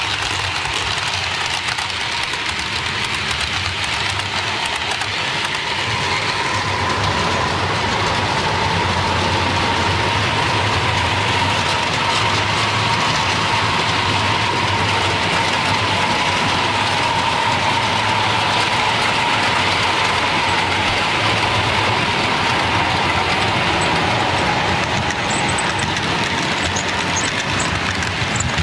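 Model trains running on the layout: a steady low rumble of wheels on track under a motor whine that builds after several seconds and fades near the end.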